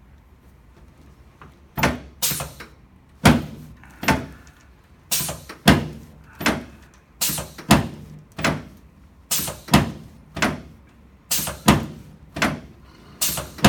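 Chiropractic adjusting table giving a run of sharp knocks, about sixteen strikes at roughly one to two a second, starting about two seconds in, as the lower spine is adjusted.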